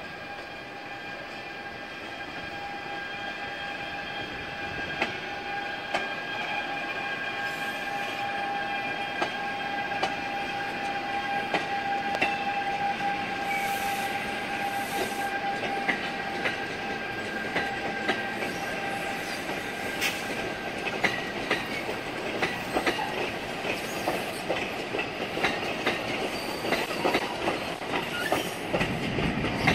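NJ Transit ALP-45DP locomotive passing with a train of multilevel coaches: a steady whine of several high tones that grows louder as it nears. In the last third the coaches' wheels click over the rail joints.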